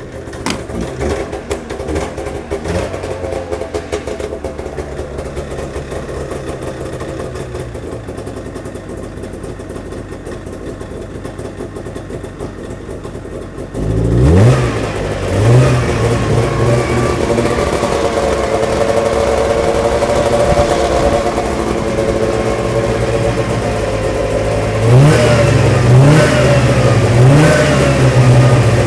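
1998 Arctic Cat Z440 snowmobile's fan-cooled two-stroke twin running just after a pull start: a steady idle, then about halfway through it is revved and settles at a faster, louder run, with a few more quick revs near the end.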